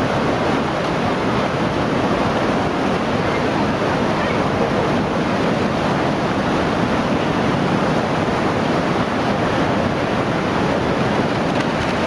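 Floodwater rushing past in a steady, loud, unbroken wash of water noise.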